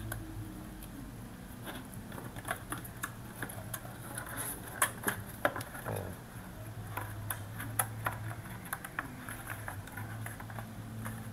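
Stiff printed card puzzle pieces being handled and pushed into slots, giving light, scattered clicks and scrapes over a steady low hum.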